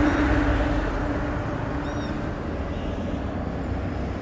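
Road traffic: a steady low rumble, with a passing vehicle's hum fading away over the first two seconds or so. A short bird chirp comes about two seconds in.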